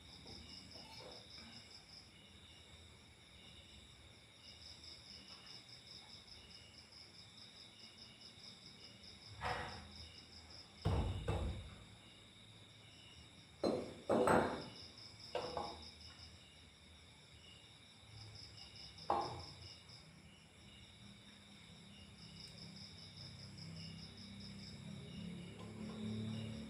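Insects, most likely crickets, chirping in a steady, pulsing high-pitched trill, with several separate knocks and clunks, the loudest a low heavy thud about eleven seconds in.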